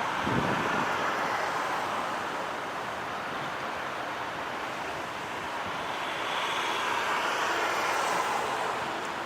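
Road traffic noise with no clear single source, swelling near the start and again late on as vehicles pass.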